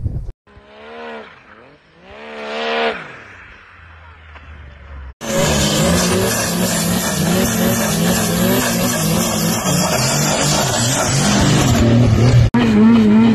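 Snowmobile engines. First a sled is revved twice in quick blips, the pitch rising and falling. Then, after a cut, a loud sled runs at high revs with a wavering pitch as it carves through deep powder.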